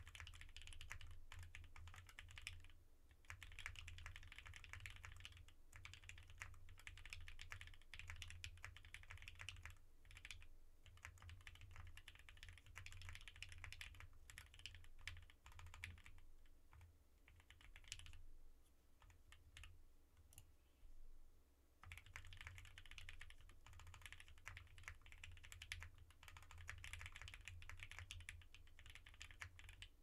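Continuous typing on a WKL Hex3C mechanical keyboard with lubed Tealios linear switches in a POM plate, a foam-filled case and ePBT Dolch keycaps. The keystrokes come as a steady run, thin out between about 16 and 22 seconds in, then pick up again. The case keeps a little metallic ping even after the foam, according to the owner.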